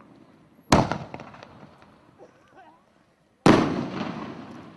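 Two aerial shell bursts from a consumer firework cake, one about a second in and one near the end. Each is a sharp bang whose echo fades away over about a second.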